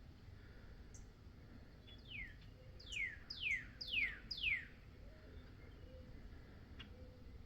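A songbird singing a short phrase of five clear downslurred whistles, each falling sharply in pitch, about two a second, starting about two seconds in.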